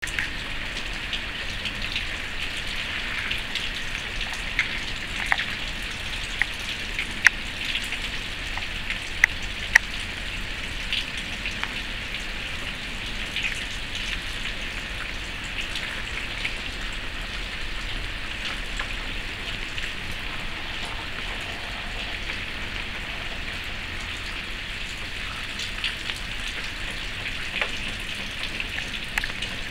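Steady rain falling, a continuous hiss dotted with many sharp ticks of single drops landing close by, a few of them louder between about five and ten seconds in.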